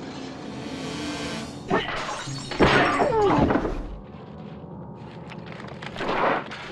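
Added comedy sound effects over background music: a sharp hit about two seconds in, then a louder crash of breaking and shattering with falling, sliding tones, and another noisy burst near the end.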